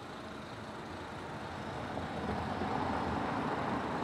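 Traffic noise from a road vehicle passing, a steady rush of tyres and engine that grows louder about halfway through.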